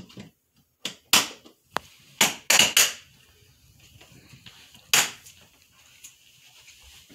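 Handling noise from a cloth snake shipping bag: short bursts of rustling as it is shaken, untied and set into a plastic tub. Several bursts come close together in the first three seconds, and one more comes about five seconds in.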